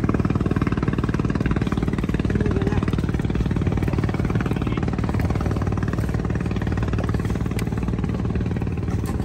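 A small engine running loud and steady, an even rapid chugging that holds one speed throughout.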